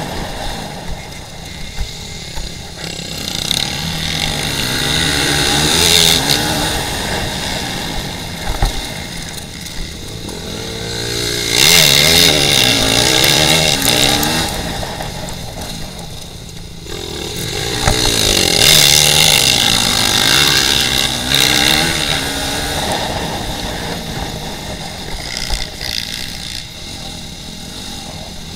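Dirt bike engine ridden off-road, revving up and down with the throttle in long swells, loudest about twelve and nineteen seconds in.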